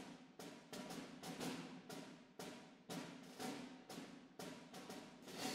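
Background music with a steady, repeating beat of drum hits, in groups of three.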